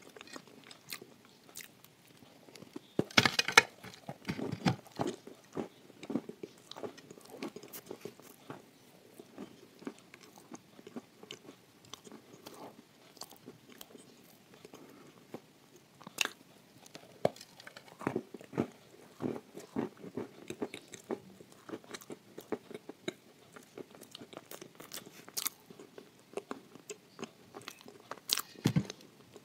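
Close-miked chewing and crunching of a slab of edible clay topped with chocolate paste: gritty crackles throughout, with a loud crunchy bite about three seconds in and another just before the end.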